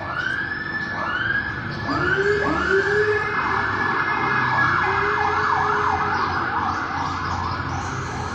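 Husky and German Shepherd puppies howling together: several rising howls start about a second apart, then overlap into a wavering chorus, with a lower-pitched howl joining in about two seconds in.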